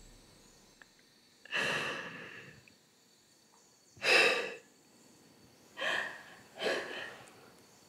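A person's heavy breaths, four of them: a long one that trails off, a short sharp one, then two close together near the end.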